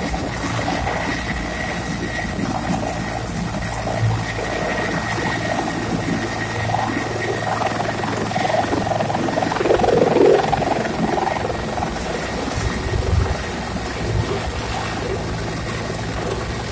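Turbine helicopter with a four-bladed main rotor lifting off and climbing away, its rotor and engines running steadily. A thin high turbine whine runs under the rotor noise, and the sound swells briefly partway through.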